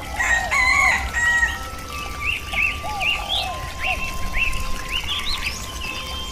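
A rooster crows once, about a second long, near the start. Songbirds follow with a quick series of short rising-and-falling chirps, two or three a second.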